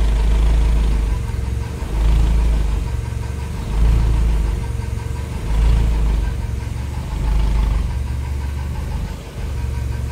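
1999 Mazda Miata's four-cylinder engine idling roughly at about 800 rpm on its first start-up, the rumble swelling and sagging unevenly every second or two. The owner hears knocking and says it is having a rough time.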